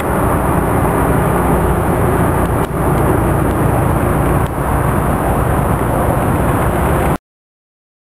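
Steady outdoor noise, a low rumble with hiss, that cuts off abruptly about seven seconds in.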